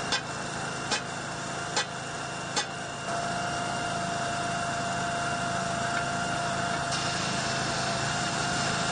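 Electric arc welding on a broken steel heating main pipe, a repair weld over the damaged section. A few sharp clicks come about a second apart, then from about three seconds in a steady hiss with a steady whine underneath.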